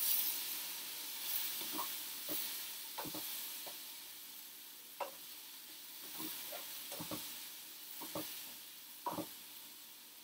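Mushroom pieces sizzling in oil in a non-stick frying pan as they are stirred, with scattered light knocks and scrapes of the utensil against the pan. The sizzle slowly dies down.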